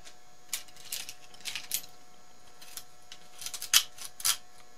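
Steel pliers clicking and clinking against each other as they are picked up, handled and laid on a plywood tool tray: a string of short, sharp clicks, the loudest a little under four seconds in.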